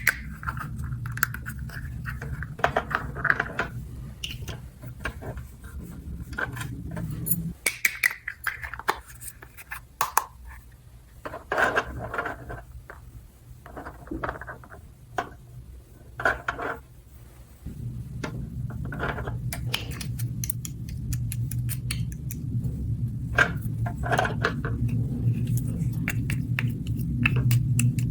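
Small plastic toy pieces clicking and clattering as they are handled, in irregular bursts. A steady low hum runs underneath and drops away for about ten seconds in the middle.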